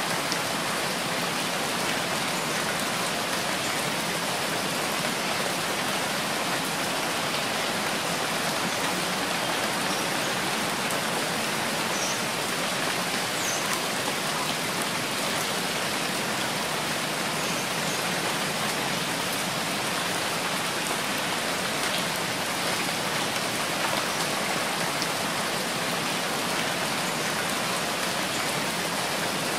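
Steady rain falling, an even, unbroken hiss that holds the same level throughout.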